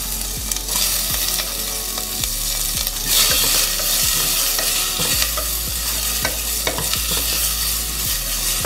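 Sliced onions sizzling in hot oil with cumin seeds in an aluminium pressure cooker, stirred with a spatula that clicks and scrapes against the pot. The sizzle grows louder about three seconds in.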